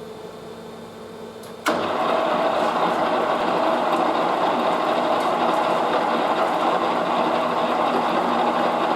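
Lathe running with a low, steady hum; a little under two seconds in, machining of the stainless steel bar starts abruptly, and a much louder, dense, steady noise of cutting and machinery carries on.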